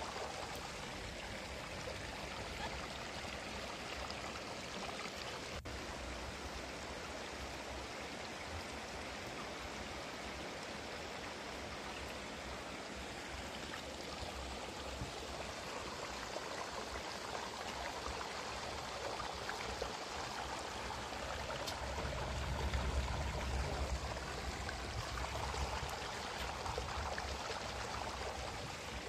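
Steady rushing background hiss, with a low rumble that swells briefly late on.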